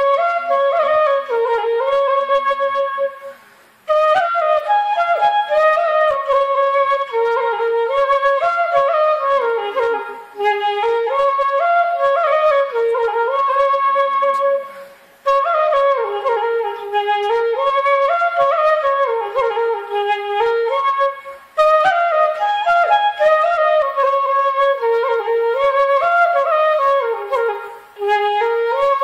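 Background music: a flute melody playing the same winding phrase over and over. It breaks off briefly about every six seconds.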